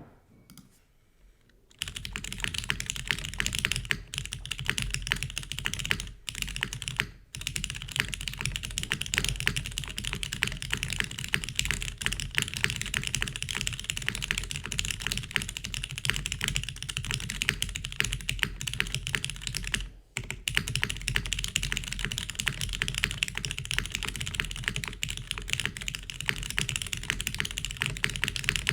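Fast, continuous typing on a Kalam Jane v2 CE custom mechanical keyboard with lubed retooled Cherry MX Black linear switches, GMK keycaps and a carbon fibre plate in an O-ring mount. The keystrokes start about two seconds in, with a few short pauses along the way.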